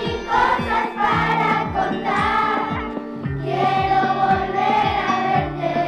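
A choir of children singing a Spanish Christmas carol (villancico) over a recorded backing track with a steady beat.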